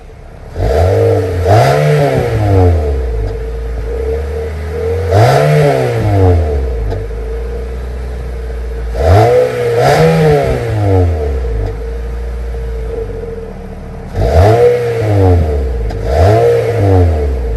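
Nissan Altima's engine, heard from behind the car at the exhaust, revved in short throttle blips from a steady idle. There are four groups of blips, most of them quick pairs, and each rises in pitch and falls back to idle.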